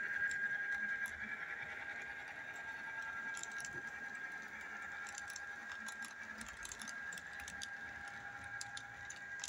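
Model train cars rolling along the track: a steady high whine with light, irregular clicking of the wheels over the rails, a little louder about the first second.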